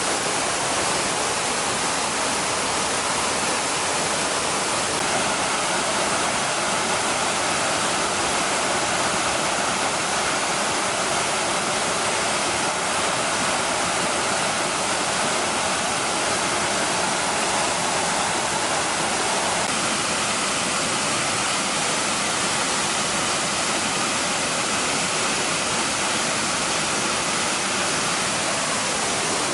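Waterfall: water pouring and splashing in a steady, dense rush with no breaks.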